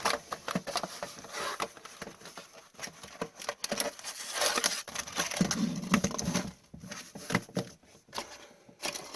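Cardboard hobby box and sealed trading card packs being handled: rustling, crinkling wrappers and light taps and clicks as the packs are taken out of the box.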